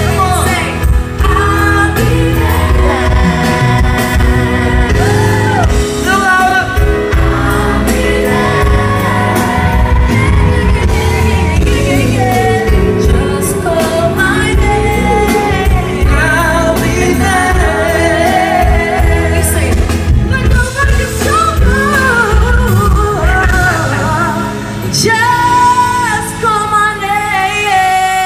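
Live concert music: a band playing a slow pop-soul ballad with heavy bass under a singer's long, winding vocal runs.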